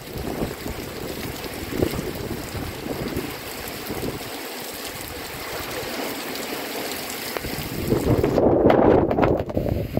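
Heavy rain pouring down while gusty wind buffets the microphone, with a stronger, louder gust near the end.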